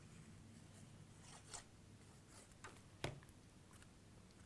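Near silence with faint handling of paper cardstock: a few soft rustles, and a short tap about three seconds in as the card is set down and pressed onto the paper bag.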